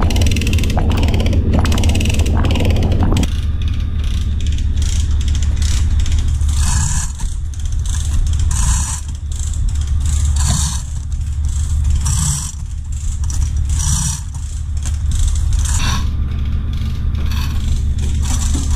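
A fishing trawler's engine running with a steady low drone, and deck machinery making sharp clicks at first, then a rhythmic scraping that repeats about every one and a half to two seconds.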